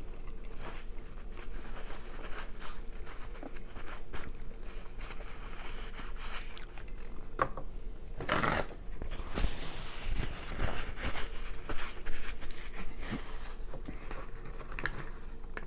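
Close-miked chewing and mouth sounds while eating takeout food: soft irregular clicks and crackles, with a louder cluster about halfway through.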